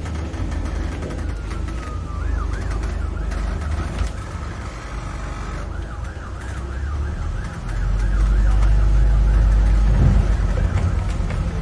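An emergency vehicle's siren wailing quickly up and down, fading out about eight seconds in, over the rumble of a bus engine that grows louder at about the same point.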